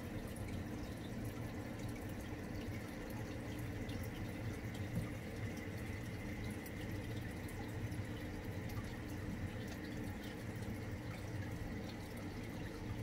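Aquarium water trickling and dripping steadily, with fine ticking splashes over a low, steady hum typical of a running tank filter.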